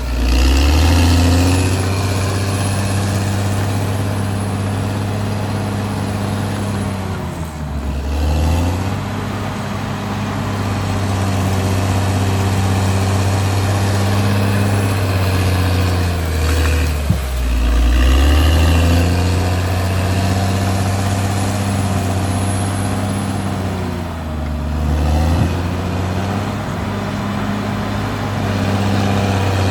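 Caterpillar D6R XL bulldozer's diesel engine running steadily, its note sagging and picking back up four times about eight seconds apart. A single sharp click about halfway through.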